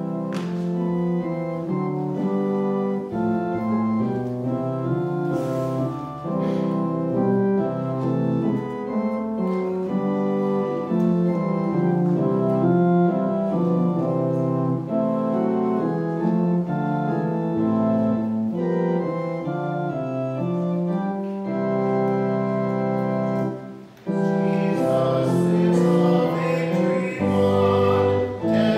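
Organ playing a hymn in held, slowly changing chords. After a short break near the end it starts the verse again and voices join in singing.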